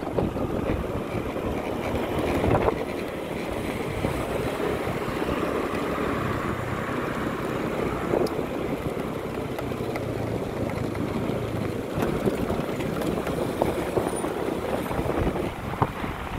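Wind buffeting the microphone over the steady running of a motorcycle engine while riding along a road.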